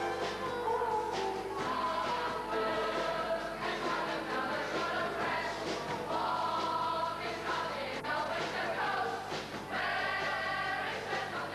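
A stage cast of young singers singing a musical-theatre number together in chorus.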